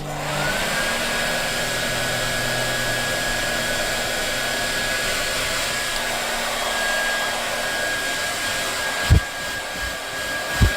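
Hair dryer switched on and running steadily: its motor whine rises briefly as it spins up, then holds one pitch under a steady rush of air. Two low thumps come near the end.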